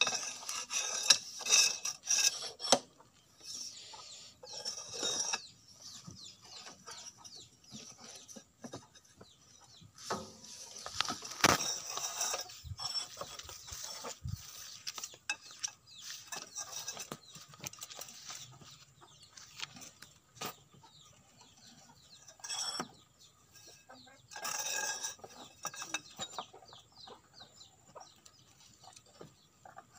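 Hand tools on the bolts of an excavator's broken track roller: a wrench and bar clicking, scraping and knocking on metal in irregular clusters, with chickens clucking now and then.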